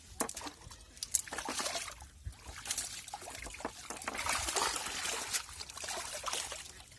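Water splashing and trickling in irregular spurts, with many small splashes.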